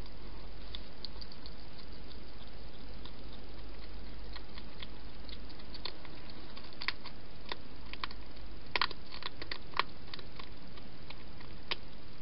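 Wild hedgehog eating from a food bowl: irregular sharp crunching clicks, sparse at first and loudest and most frequent in the second half, over a steady background hiss.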